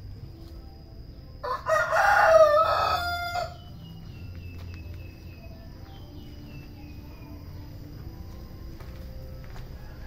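A rooster crowing once: a single call of about two seconds, starting about a second and a half in.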